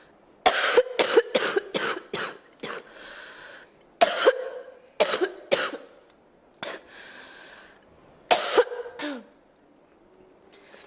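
A girl coughing in fits: a quick run of about six coughs, then shorter bursts of two or three coughs, with a short breath drawn in between fits.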